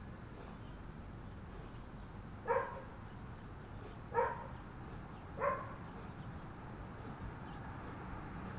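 A dog barking three times, single barks a second or two apart, over a steady low background hum.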